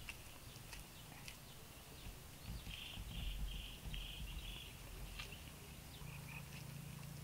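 Wet mud being pressed and patted by hand onto a stick frame: soft, irregular low pats and squelches. About three seconds in, a bird gives five quick high notes over a steady faint high hum.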